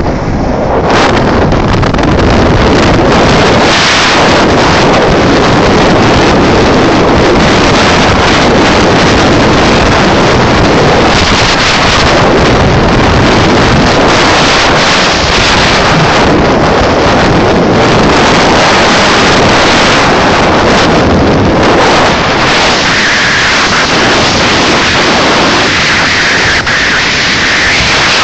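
Rigid-inflatable boat running fast at sea, its three Yamaha 350 hp outboards under a steady loud rush of wind on the microphone and water and spray along the hull.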